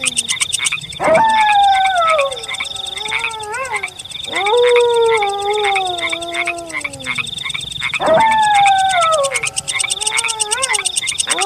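A wolf howling three times, about every three and a half seconds. Each howl is one long call that rises quickly and then slides slowly down in pitch. Behind it, frogs croak over a steady high trill.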